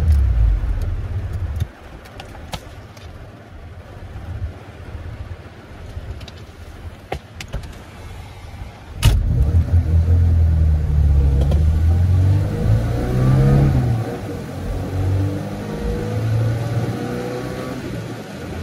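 A Tofaş car's engine cutting out about a second and a half in, then, after a few sharp clicks, coming back to life with a sharp click about nine seconds in and being revved up and down.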